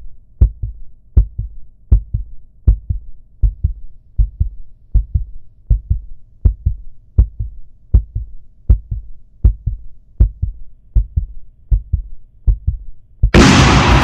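Heartbeat sound effect: deep double thumps, lub-dub, repeating steadily at about 80 beats a minute. Loud electronic dance music cuts in abruptly near the end.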